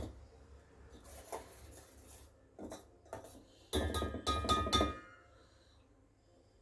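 Steel kitchen utensils clinking and clanking as melted jaggery syrup is strained: a few sharp taps early on, then a rapid cluster of ringing metal clanks about four seconds in.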